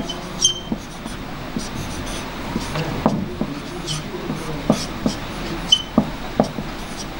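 Marker writing on a whiteboard: irregular small taps and scratches of the felt tip, with two brief high squeaks, one about half a second in and one near the end, over a steady low hum.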